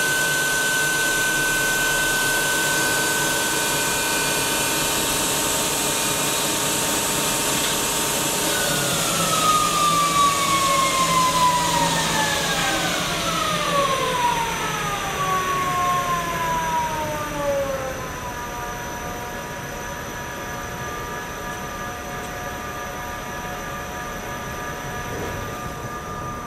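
Acer 1440V variable-speed lathe's spindle drive running at about 2,280 rpm with a steady whine of several tones. About eight seconds in, the speed is turned down: the whine falls in pitch over about nine seconds and settles lower and slightly quieter at about 850 rpm.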